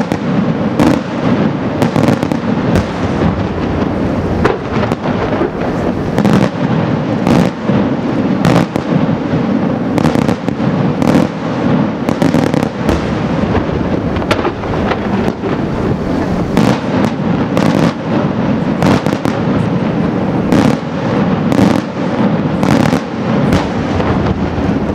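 Daytime fireworks display: a rapid, continuous barrage of aerial shells bursting, many sharp bangs a second over a steady rumble.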